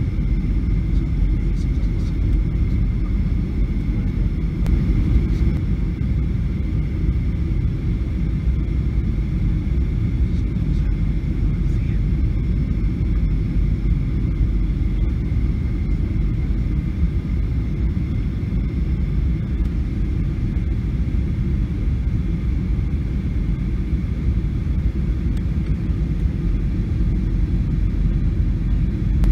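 Steady cabin noise inside a Boeing 737 airliner on low approach: a deep rumble of engines and airflow, with a faint steady high whine above it.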